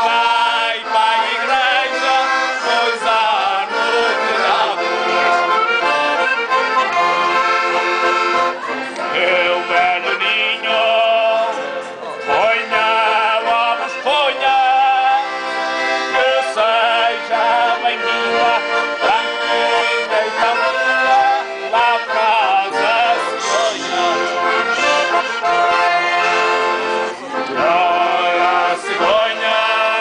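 Portuguese folk song played on button accordions, with a man singing over the chords.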